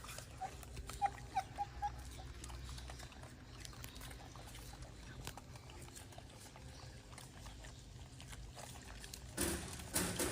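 Golden monkey eating fruit: soft scattered clicks and rustles of chewing and handling food. A quick run of about six short high chirps comes in the first two seconds, and a louder burst of noise near the end.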